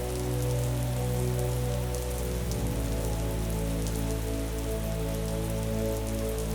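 Steady rainfall with a fine patter of drops, over soft music of deep held notes that shift to a new chord about two and a half seconds in.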